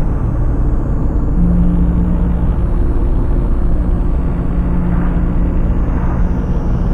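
Car driving along a highway: a steady low rumble of road and engine noise. A steady drone joins it about a second and a half in.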